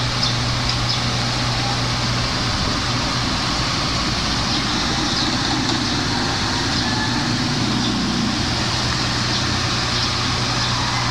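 Steady low hum over constant hiss, like a small motor or electrical device running without change.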